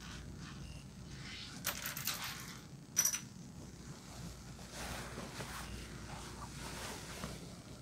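Small plastic LEGO pieces clicking and clattering as they are handled on the model, with a cluster of clicks a little under two seconds in and one sharp click about three seconds in, the loudest.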